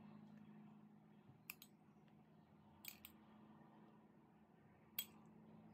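Metal spoon clinking against a ceramic bowl while scooping baked beans: a few light, sharp clinks, two of them close together near the middle and the loudest near the end, over a faint steady hum.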